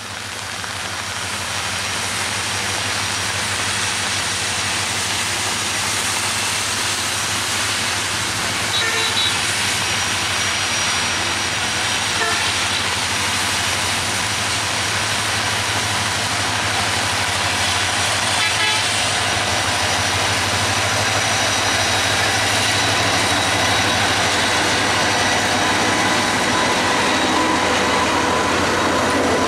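Diesel-hauled passenger train approaching and running past close by: a steady low locomotive engine drone with the rumble of wheels and coaches on the rails, growing louder over the first few seconds and then staying loud as the coaches pass.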